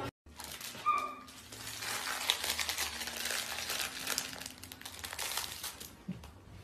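Latex balloons on strings rubbing and brushing together, a soft crackly rustle with a short squeak about a second in.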